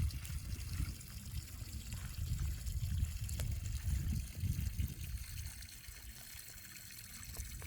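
Mountain stream water running, with a steady hiss and an uneven low rumble that dies down about five seconds in.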